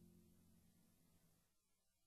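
Near silence: the last held notes of the background music dying away.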